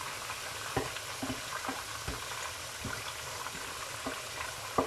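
Pieces of sea bream frying in a pan of hot oil: a steady sizzle with scattered pops and crackles, the sharpest just before the end.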